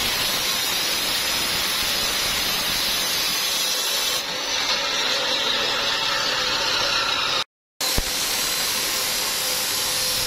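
Electric abrasive cut-off saw (chop saw) grinding through metal aftermarket motorcycle exhaust pipes, a steady harsh grinding hiss. It breaks off for a moment about three quarters of the way through.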